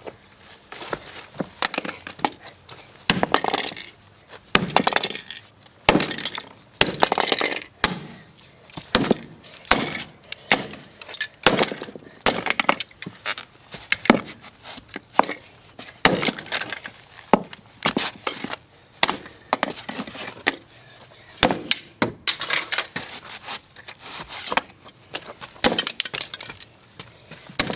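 A toy car being struck over and over, with sharp blows about once or twice a second and clinking and rattling of its pieces between them; it is tough and does not break.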